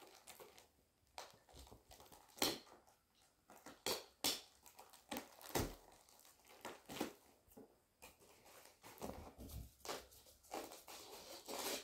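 Packaging being opened and handled by hand: scattered faint rustles, crinkles and small knocks.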